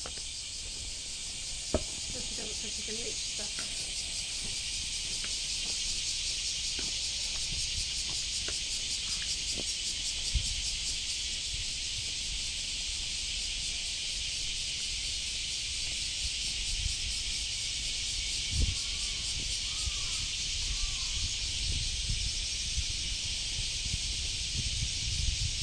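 A steady, dense, high-pitched insect chorus with a fast pulsing texture, over a low rumble and a few soft knocks, with some faint chirps about three-quarters of the way through.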